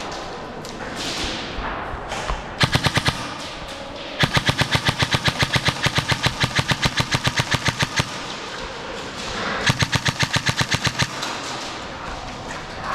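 Airsoft gun firing rapid strings of shots, about eight a second. There is a short burst about two and a half seconds in, a long string of nearly four seconds, and another burst around ten seconds in.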